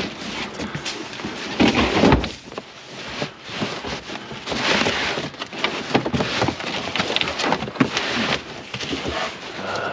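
Cardboard box of canvas paintings being handled and shifted in a vehicle's cargo area: rustling and scraping of cardboard with irregular knocks and clicks, loudest about two seconds in.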